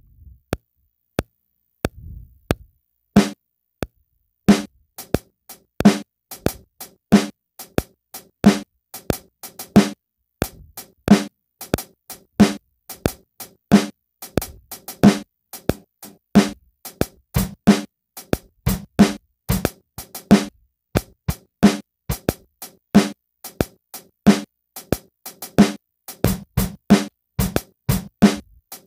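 Chopped sample slices triggered by hand from the pads of an Akai MPC X, played as a loose beat of short drum-like hits. After a sparse start of a few ticks, the hits come quickly and unevenly.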